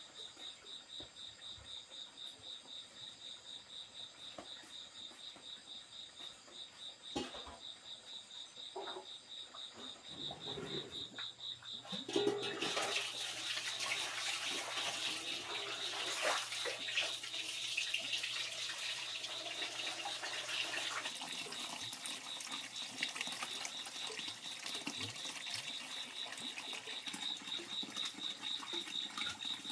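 Insects trilling steadily in a fast, even pulse. About twelve seconds in, a louder rush of water joins them and carries on.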